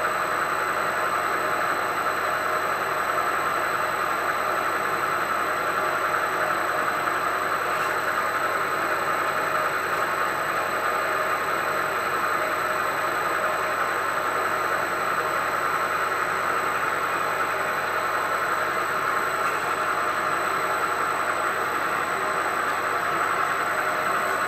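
Milling-machine spindle drilling into an induction-hardened steel lathe bedway. A steady cutting noise with a constant high whine runs through it, without pause.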